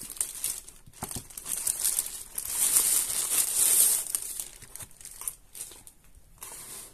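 Thin plastic courier mailer bag crinkling and rustling as it is cut open and a cardboard box is pulled out of it; the crinkling is loudest in the middle and thins out toward the end.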